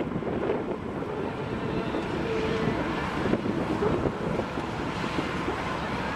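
Wind buffeting the microphone over the steady running of a Kubota tractor engine pulling a mini train past.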